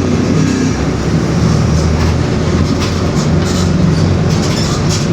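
Mercedes-Benz OF-1721 BlueTec 5 city bus under way, heard from inside: a steady low drivetrain hum with the growling ('roncando') rear differential, and short rattles from the bodywork now and then.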